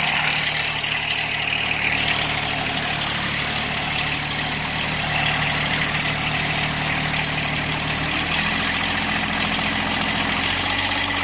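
Diesel engine of a John Deere compact tractor-backhoe idling steadily in the cold, just after being jump-started from a small USB jump-starter pack. Its note changes about eight seconds in and again near the end.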